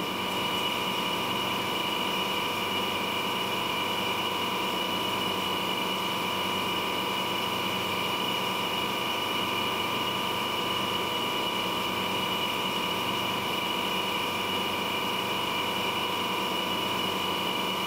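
Vacuum freeze-drying machine running steadily: a constant hum with a high, even whine over it, from the unit pulling the vacuum needed to sublimate the water out of a load.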